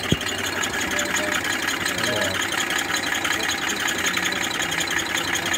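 Small steam engine of a home-built steam lawn tractor running steadily under test, a fast even mechanical clatter with a hiss over it; a single sharp click comes just after the start.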